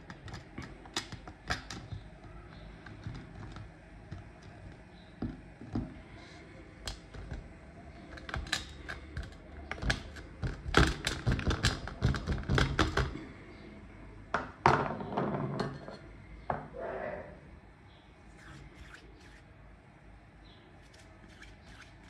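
Kinetic sand being pressed into a glass with a wooden tamper and crumbled onto a stainless steel tray: scattered small clicks and taps of glass and wood on the metal, with a dense run of knocking about ten to thirteen seconds in and a short patch of crumbling and scraping just after.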